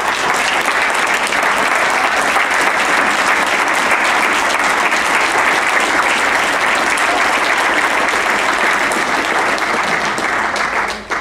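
A large audience applauding: dense, steady clapping that thins out near the end.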